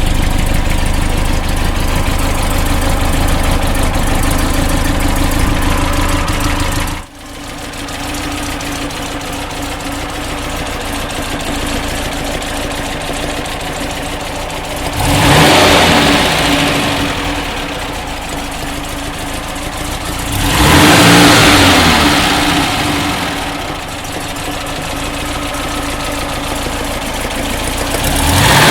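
1968 Porsche 912's rebuilt air-cooled flat-four running, quieter after an abrupt change about seven seconds in. It is then revved up and let fall back twice, with another rev starting at the end.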